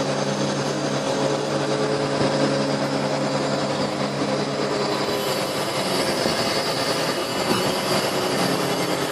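Truck engine and truck-mounted hydraulic crane running steadily while the crane hoists a load: an even engine drone under a broad hiss.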